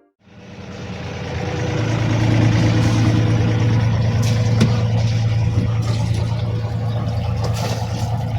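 Sailing yacht's inboard engine running steadily with a low hum under a steady hiss, fading in over the first couple of seconds.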